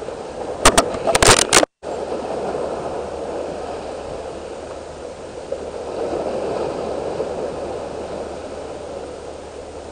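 Sea waves washing and breaking over shoreline rocks, a steady rushing hiss. A few sharp knocks come about a second in.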